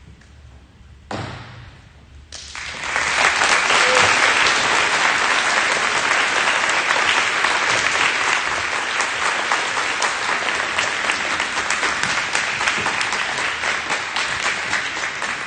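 Audience applauding: a short noise about a second in, then a dense round of clapping from about two seconds in that holds steady and slowly tapers toward the end.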